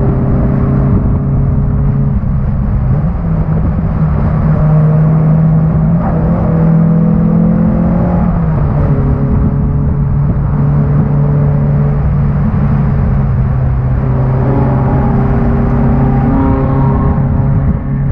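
1991 Honda Accord's four-cylinder engine running under hard load at race pace. Its pitch climbs steadily for a few seconds, drops sharply about eight seconds in, then holds steady, with a brief dip near the end.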